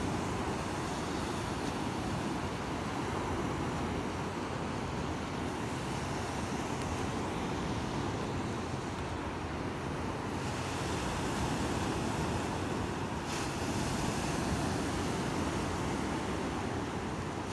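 Steady noise of surf breaking on a beach, with wind rumbling on the microphone.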